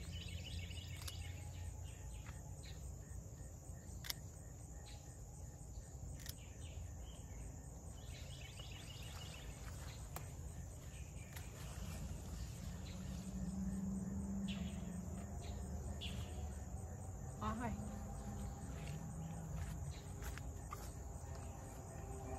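A steady chorus of insects, with scattered sharp clicks of hand pruning shears snipping okra pods and some rustling of the okra leaves.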